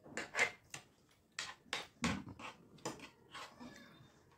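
Metal spoons clinking and scraping against plates as two people scoop up and eat dahi puchka and dahi vada: a string of short, irregular clicks and scrapes.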